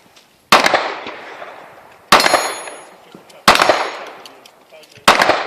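Four pistol shots from a 9mm handgun, spaced about one and a half seconds apart, each loud and followed by a long fading echo.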